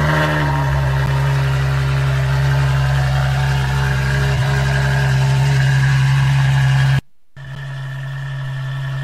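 Ferrari F12berlinetta's V12 engine idling steadily. The sound cuts out for a moment about seven seconds in, then the same idle carries on a little quieter.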